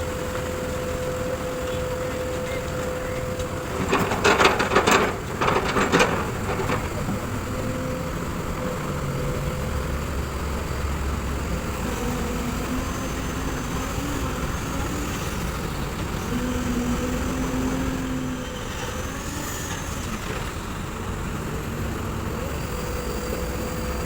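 Kobelco SK200 hydraulic excavator's diesel engine running steadily, with a burst of loud knocks and clatter about four to six seconds in.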